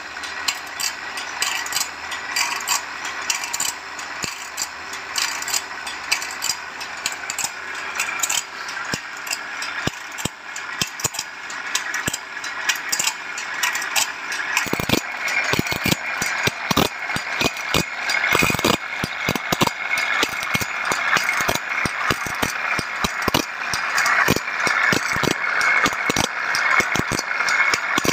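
Automatic bandsaw-blade sharpening machine running, its abrasive grinding wheel rasping against the blade's teeth over a steady, regular clicking of the machine. The grinding grows louder about halfway through.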